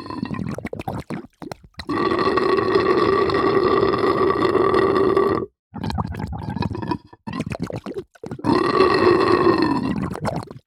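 Water gurgling in bursts with a hollow, throaty pitch: a few short choppy gurgles, then a long steady gurgle of about three and a half seconds, more broken gurgles, and a final long gurgle whose pitch sinks as it dies away.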